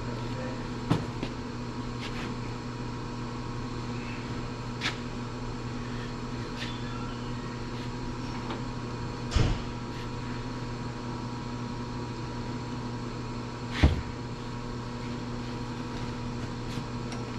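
Steady electrical hum in a fab shop, with a few short, sharp knocks of metal being handled, the two loudest in the second half.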